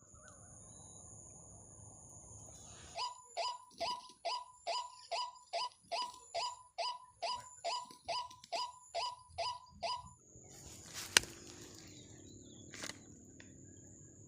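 A waterhen calling: a run of about twenty short, identical, downward-sweeping notes, about three a second, lasting some seven seconds. A single sharp click follows a little later.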